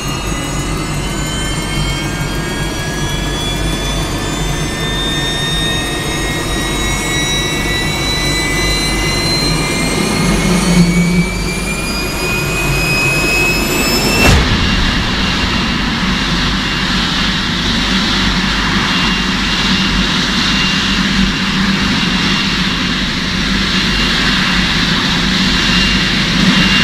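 Jet turbine engine spooling up: a high whine that climbs steadily in pitch for about fourteen seconds. It then switches suddenly, about halfway through, to a steady full-power rush of noise with a single high whine held on top.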